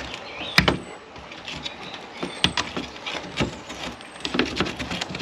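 Irregular plastic clicks, scrapes and a few sharper snaps as a screwdriver prises the clip-in louvred front grille off a plastic soffit vent outlet.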